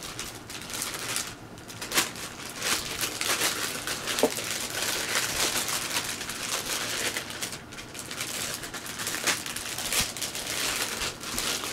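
Clear plastic packaging bag crinkling and rustling as it is handled, with many sharp crackles throughout.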